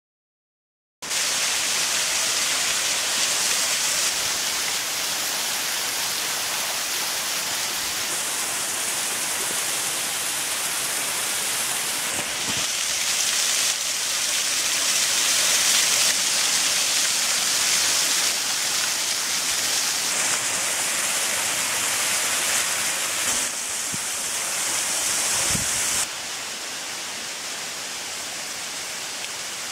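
Small waterfall splashing down among ice and icicles, a steady rushing hiss that starts about a second in, its level stepping up and down every few seconds and dropping near the end.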